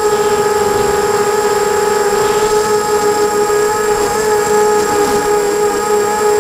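250-size FPV racing quadcopter's brushless motors and propellers whining at a steady high pitch, heard through its onboard camera, the pitch wavering slightly as the throttle shifts.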